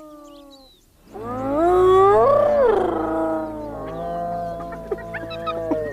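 Spotted hyenas calling: a loud whoop rising and then falling in pitch about a second in, followed by shorter calls near the end, over a low steady music drone.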